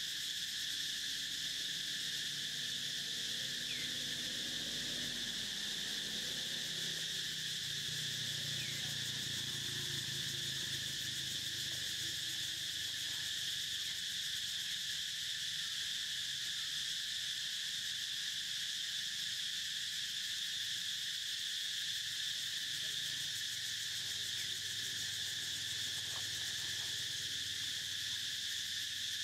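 Steady, high-pitched chorus of insects droning without a break, with a faint low hum underneath during the first half.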